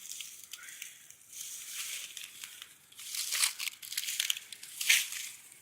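Dry leaves, twigs and briars crunching and rustling as someone pushes through undergrowth, in irregular crackles with louder bursts about halfway through and near the end.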